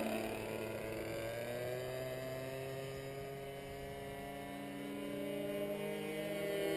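The internal-combustion engine of a radio-controlled Ultimate aerobatic biplane running in flight. Its pitch falls at the start as the plane passes, holds steady as it flies off, then rises and grows louder near the end.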